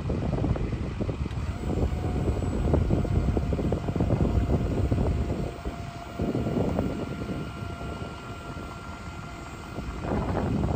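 Dump bed of a 2004 Chevrolet C4500 lowering, its hydraulic hoist giving a thin steady whine for most of the descent over the low rumble of the truck running.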